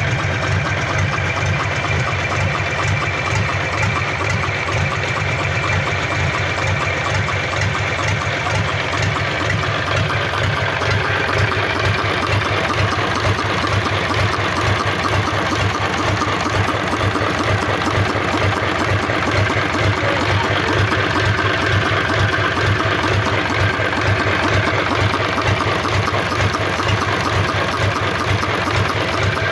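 Freshly rebuilt Mitsubishi Fuso D16 diesel engine, out of the truck, running steadily at idle.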